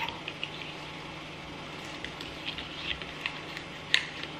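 Silicone spatula stirring a thick ranch-based sauce in a ceramic bowl: soft, scattered wet clicks and scrapes, with one sharper tap near the end.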